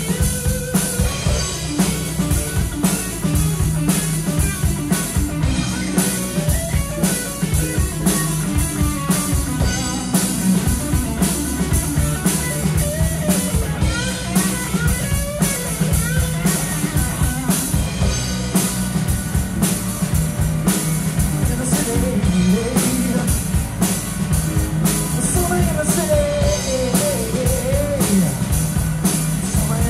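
Live rock band playing an instrumental passage: electric guitar lead with notes bending in pitch over bass guitar and a steady drum-kit beat.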